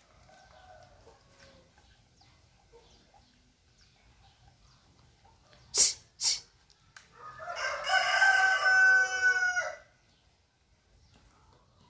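A rooster crowing once, a single drawn-out call of about two and a half seconds, just after two sharp knocks.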